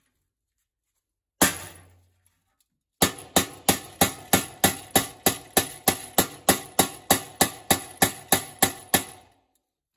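Rubber-faced mallet striking a 1 mm 304 stainless steel plate laid against a steel breastplate, moulding it to the armour's curve. One blow, then a fast, even run of about twenty loud blows, three or four a second, each ringing briefly, stopping shortly before the end.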